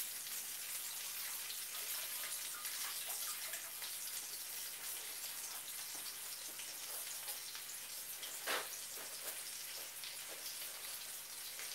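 Sea bass fillets sizzling in oil in a nonstick frying pan: a steady hiss with scattered crackles and one louder pop about eight and a half seconds in.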